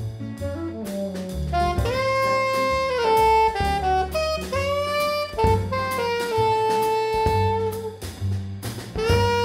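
Jazz ensemble playing live: a saxophone melody in long held notes over walking double bass, piano, guitar and drums with cymbals.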